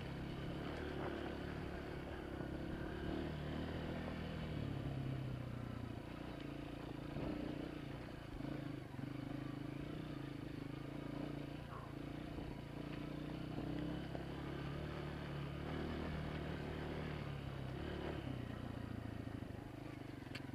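Honda CRF230F's single-cylinder four-stroke engine running under way on a dirt trail, its pitch rising and falling as the throttle is worked.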